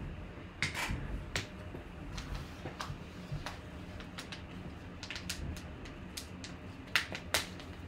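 Rustling and crinkling of a yellow padded mailer envelope being picked up and handled, with scattered small clicks; two sharper crinkles come near the end.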